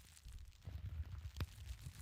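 Campfire burning, with a low rumble and irregular crackling of burning wood that thickens about half a second in and has one sharp pop near the middle.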